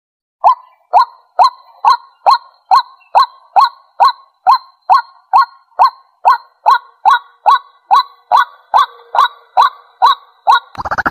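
White-breasted waterhen giving its territorial call: a short, loud note repeated about twice a second, steady in pace for about ten seconds, as used in lure recordings. Just before the end a different rapid, dense sound cuts in.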